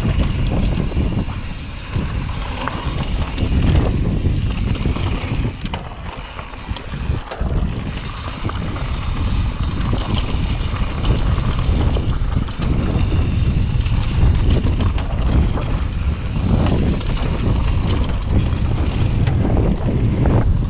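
Wind rushing over a GoPro action camera's microphone on a mountain bike riding a dirt trail, with irregular knocks and rattles from the bike over the ground. The rush dips briefly about six seconds in.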